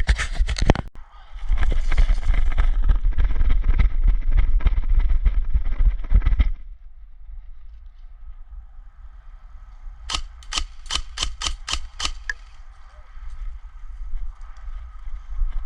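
Airsoft gun firing: a short full-auto burst at the start, then a long rapid burst of about five seconds. About ten seconds in comes a run of about eight single shots, roughly four a second.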